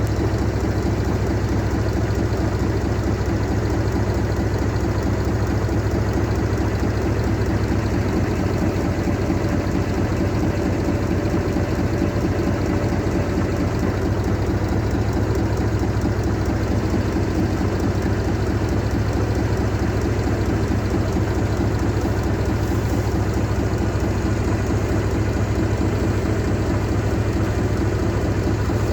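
BM 350 tractor engine running steadily at a constant speed, with a faint thin whine joining for several seconds around the middle.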